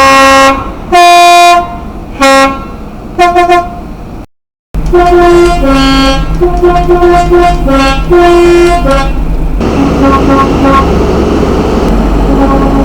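British train two-tone horns sounding repeated blasts that alternate between a low and a high note: first a few separate blasts, then, after a sudden break, a longer run of quick alternating toots over a steady low engine rumble. In the last few seconds the horn notes grow fainter under the rushing noise of a passing train.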